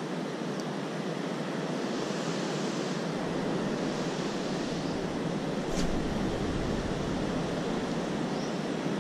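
Steady wash of surf, with wind buffeting the microphone as a low rumble that builds about three seconds in and is strongest from about six seconds in. One sharp click near the six-second mark.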